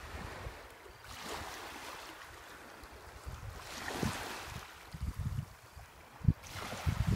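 Small waves washing onto a stony beach, the wash swelling and fading twice. Wind buffets the microphone in low rumbles during the second half.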